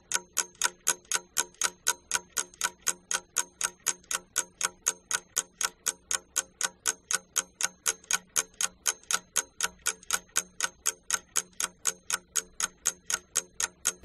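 Ticking-clock sound effect, about four even ticks a second. It fills a timed pause for pupils to think over a question.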